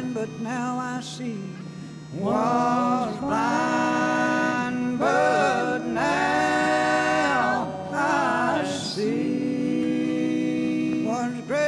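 Music: a voice singing long, held notes over a steady low tone, with short breaks between phrases.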